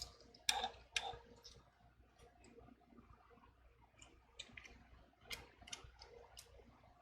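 Faint, scattered clicks and taps of small precision tools on the tiny screws and metal bracket inside an iPhone 12, as the bracket's last screws are set and driven. A few sharper clicks come in the first second and a half, then sparse light ticks.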